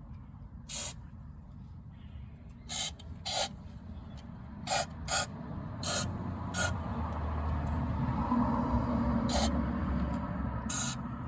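A series of short, sharp hissing spray bursts, about nine of them at irregular intervals, like an aerosol can being squirted in quick shots. A low rumble builds underneath from about halfway through.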